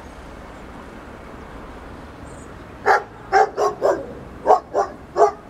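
A dog barking seven times in two quick runs, the first beginning about three seconds in.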